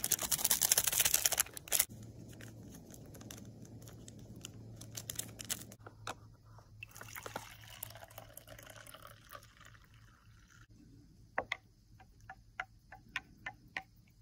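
A loud rustle of packaging, then hot water poured from a pot into an enamel mug of instant coffee, then a spoon stirring and clicking against the mug's rim and sides.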